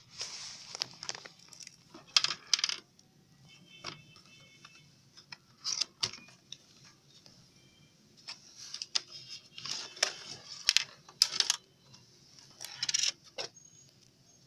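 A cardboard box and a plastic toy ATM coin bank being unpacked by hand: irregular bursts of rustling and scraping with sharp clicks and taps.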